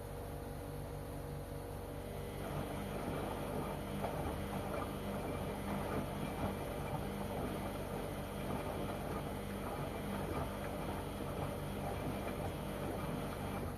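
LG washing machine in its wash cycle: a bout of drum turning with churning laundry and water starts a couple of seconds in and stops abruptly near the end, over a steady hum.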